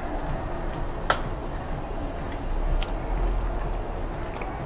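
Pork sizzling on a tabletop Korean barbecue grill: a steady frying hiss with faint scattered ticks, and one sharp click about a second in.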